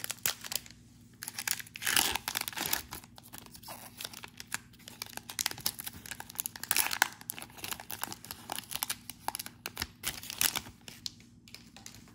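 Plastic wrapper of a trading-card pack being torn open and crinkled by hand: a run of irregular crackles, with louder rips about two, seven and ten seconds in.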